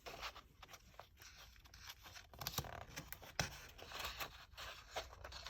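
Faint rustling with scattered small clicks and scrapes, as a picture book's paper pages are handled.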